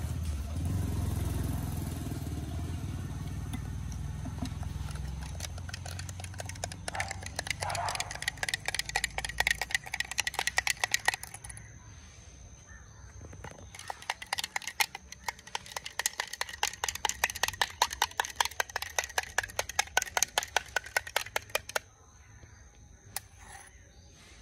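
A metal spoon stirring aloe vera juice in a glass tumbler, clinking rapidly against the glass in two long spells. A low rumble underlies the first few seconds.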